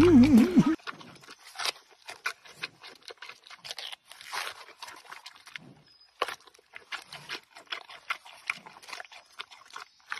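Giant panda biting and chewing a bamboo shoot: irregular crisp crunches and snaps. A loud music clip cuts off suddenly about a second in.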